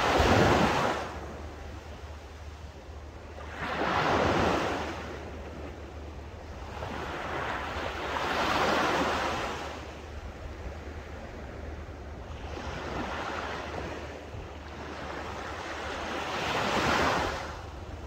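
Small, calm sea waves breaking and washing up a sandy beach. Each swells and fades, about one every four seconds, five in all, with the first the loudest.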